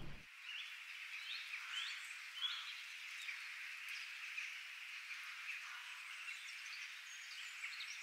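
Faint outdoor nature ambience: a steady high-pitched chorus of calling animals, with a few short rising bird chirps about two seconds in.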